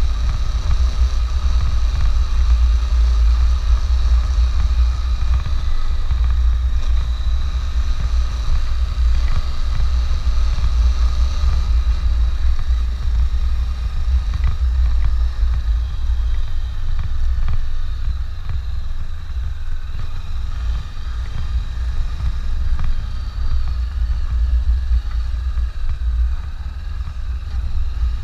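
Honda CB500X motorcycle being ridden, its parallel-twin engine running steadily under a heavy low rumble of wind buffeting the microphone.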